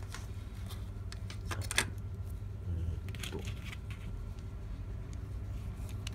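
Scattered small clicks and light rattles of hands handling an amplifier's circuit board and chassis parts, sharpest about two seconds in, over a steady low hum.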